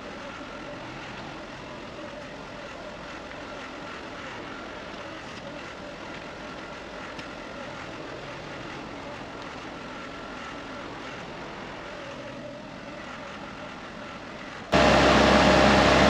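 Skid steer engine running steadily at a distance, a low even hum. About fifteen seconds in, a sudden cut to the engine running much louder, close by.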